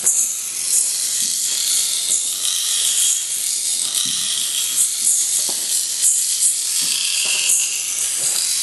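A dancer's sound costume, its rustle amplified and treated with live electronics: a dense, steady, high-pitched hissing rattle with a few faint clicks scattered through it.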